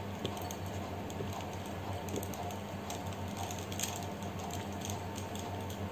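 Faint light taps and patter as sliced tomato is tipped from a glass bowl into a steel mixer-grinder jar, over a steady low electrical hum.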